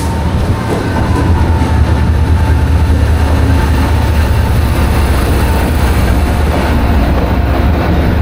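Passenger train running on its tracks: a steady, loud low rumble.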